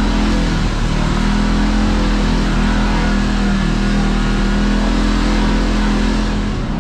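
Side-by-side UTV engine running at a steady pitch as the machine drives along.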